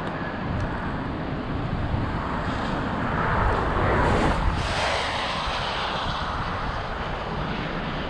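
Steady rushing outdoor noise of wind on the microphone over high, fast floodwater, with a low rumble. A louder rush swells up and fades away about halfway through.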